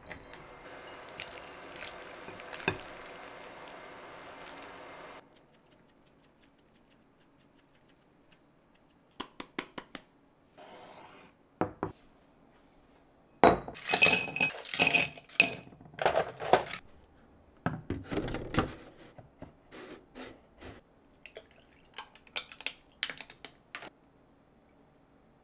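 Glassware and kitchen tableware clinking and knocking as a tall sundae glass is handled and filled with ice. The knocks come in scattered clusters, the loudest a run of ringing glassy clinks midway. A steady hiss in the first few seconds cuts off suddenly.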